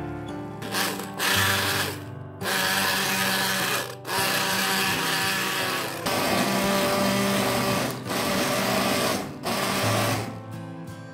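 Stainless immersion (stick) blender running in several bursts with brief pauses, pureeing cooked pumpkin chunks in a glass bowl. The motor starts about a second in and stops near the end.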